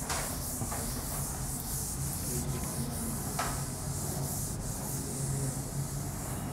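Steady hiss over a low hum, with a few faint ticks.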